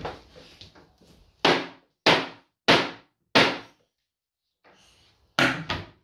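A string of hard blows smashing up a kitchen: four sharp strikes about 0.6 s apart, a short pause, then two more in quick succession near the end.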